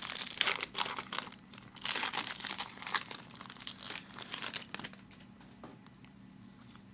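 Foil wrapper of a hockey trading-card pack crinkling and tearing as it is opened, in irregular crackles that die down about five seconds in.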